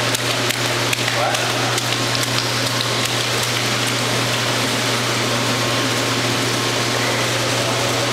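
A toddler's hands slapping the pool water in a few small splashes in the first couple of seconds, over a steady rushing noise with a constant low hum that runs throughout.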